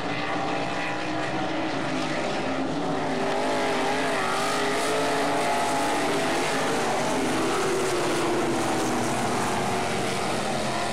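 Winged dirt-track sprint car's engine running at racing speed, its pitch rising and falling as the throttle comes off and back on through the turns.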